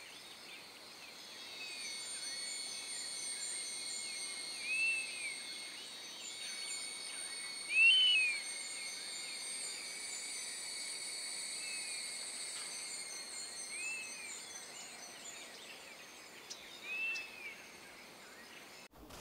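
Wild ambience of insects trilling steadily at several high pitches, with a bird giving a short rising-and-falling call about every three seconds, the loudest about eight seconds in.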